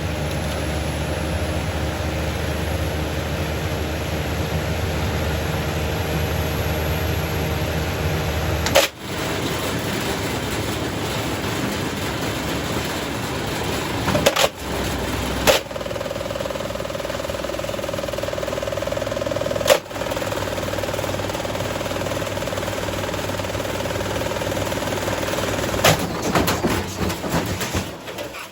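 Hoover H Wash & Dry washer-dryer spinning with loose objects, including car speaker parts, thrown around in the drum: a loud, continuous rattling run broken by sharp bangs, about five big ones, with a cluster near the end.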